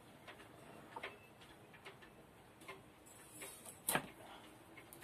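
A knife and hands working on a wooden chopping board: a few irregular clicks and knocks, the loudest about four seconds in.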